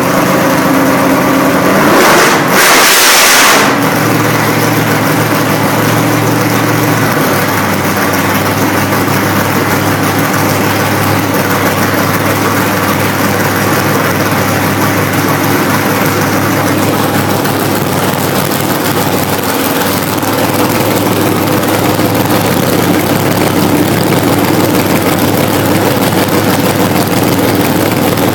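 Small-block Chevy 350 V8, bored .030 over, running loudly through open upright exhaust stacks. It is revved up sharply for about a second and a half about two seconds in, then holds a steady speed while the total ignition timing is set.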